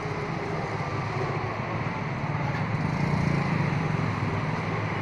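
A motor vehicle's engine running steadily with a low drone, a little louder about three seconds in.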